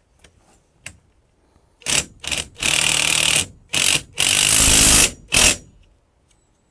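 A nut and bolt on a metal staging framework being tightened with a tool: about six short bursts of harsh mechanical rattling, the longest nearly a second, starting about two seconds in.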